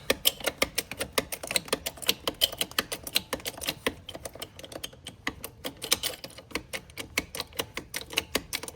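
A mechanism clicking rapidly and unevenly, several sharp metallic clicks a second, like a ratchet being worked while the tractor wheel is raised on the jack.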